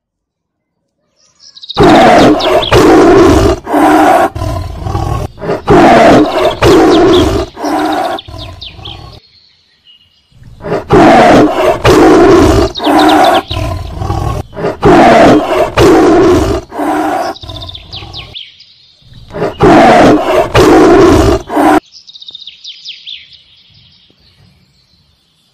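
Loud animal roars in three runs of short growling pulses, the second run nearly the same as the first and the third shorter, then faint bird chirping near the end.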